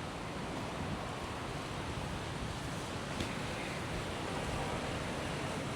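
Rough sea surf washing onto a beach, a steady rush of waves with some wind.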